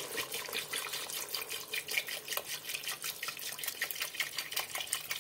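Milk pouring in a stream from a carton into a stainless steel pot of chicken in sauce, splashing and crackling as it hits the food.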